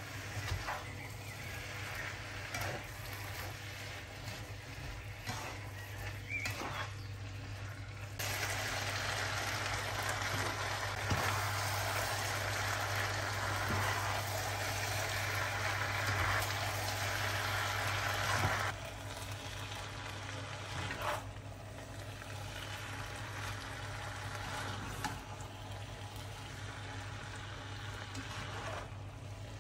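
Food sizzling in a nonstick frying pan while a spatula stirs chicken, vegetables and boiled macaroni, with light scraping clicks. The sizzle is louder for about ten seconds in the middle, over a steady low hum.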